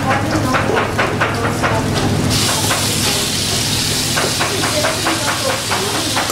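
A knife chopping rapidly on a plastic cutting board, about five strokes a second, in a kitchen. A steady hiss comes in abruptly about two seconds in.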